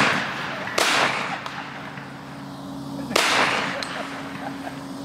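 Two shotgun shots about two and a half seconds apart, each trailing off in an echo, just after the tail of an earlier shot.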